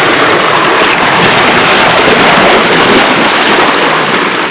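Seawater surging and splashing among granite boulders: a loud, steady rush that eases slightly near the end.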